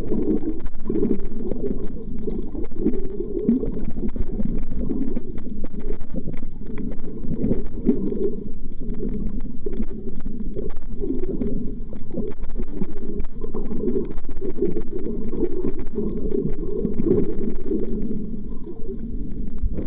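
Steady, muffled underwater rumble of moving water, heard through a camera's waterproof housing, with nearly all of the sound low in pitch.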